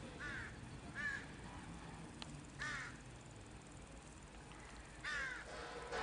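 Crow cawing: four short, harsh calls at irregular intervals over a faint low rumble.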